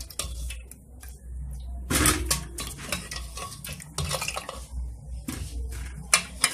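Steel ladle knocking and clinking against a steel pot as boiled potatoes are scooped out of their cooking water, a few scattered knocks over a low steady hum.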